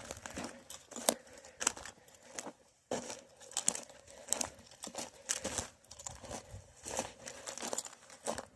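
Footsteps crunching on dry lakebed ground, about one step every two-thirds of a second, each step a crackly scrunch.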